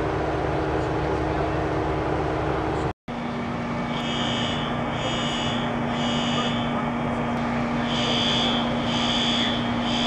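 Fire engine's diesel engine idling with a steady low hum. After a cut about 3 s in, a building fire alarm sounds over it: high beeps about once a second in groups of three, the temporal evacuation pattern.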